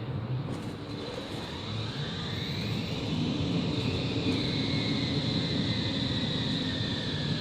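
Končar TMK 2200 low-floor tram pulling away from a stop: its electric traction drive whines, with tones rising in pitch as it gathers speed over low rumbling running noise.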